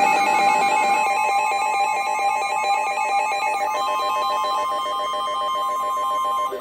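Emergency Alert System attention tones: a steady high tone under a fast, repeating warble of electronic pitches, with a second, higher steady tone joining about halfway. The tones cut off suddenly just before the end.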